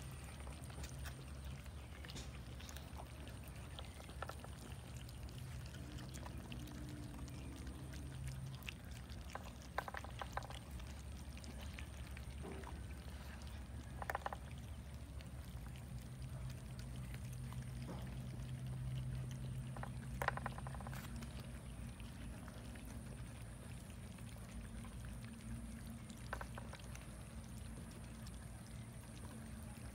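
A crowd of cats eating rice and fish from a tray: soft chewing and smacking, with a few sharper clicks spread through, over a low steady hum.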